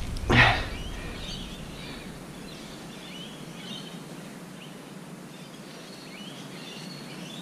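Outdoor ambience with faint, scattered bird chirps, after a short loud sound right at the start.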